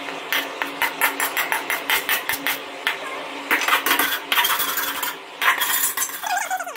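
Steel spoon scraping and tapping roasted gram flour out of a steel kadai into a stainless steel mesh sieve, a quick run of metal clicks, followed by the metal sieve rattling and rasping as it is shaken by hand over a steel plate.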